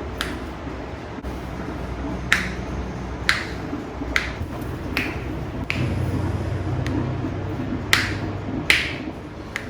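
Barber's finger snaps during a head massage: about nine sharp snaps at uneven intervals roughly a second apart, over a low steady hum.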